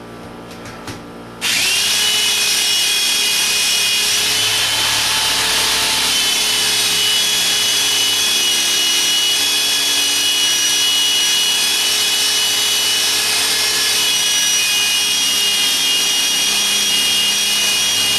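Electric drill boring into a concrete block wall. It starts abruptly about a second and a half in, rises briefly to speed, then runs steadily with a high whine until near the end.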